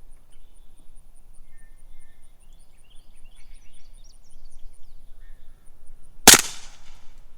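A single suppressed gunshot about six seconds in, one sharp crack with a short ringing tail, firing a 147-grain Mills Ammunition poly-coated round. Faint bird chirps come before it.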